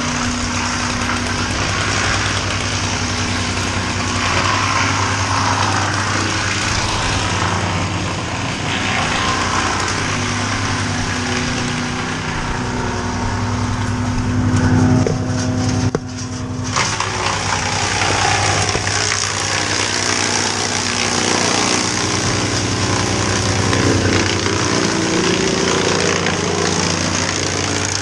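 An engine running steadily throughout, dipping briefly about sixteen seconds in.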